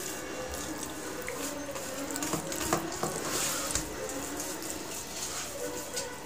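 Eating by hand from steel plates: fingers squeezing and mixing wet rice and fish curry, a soft wet squelching over a steady hiss, with now and then a light click against a plate.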